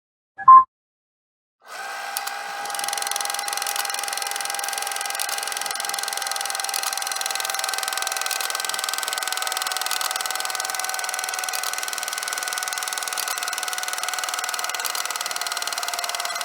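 A camera's electronic beep about half a second in, then after a brief silence a small camera motor starts whirring steadily, with a fine rapid ticking and a pitch that slowly sinks a little.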